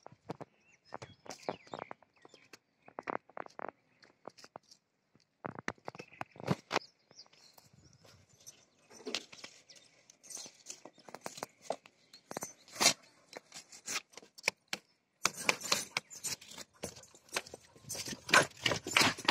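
A black Labrador moving about on concrete and playing with a plastic toy: irregular clicks and scrapes, growing into dense clicking in the last few seconds.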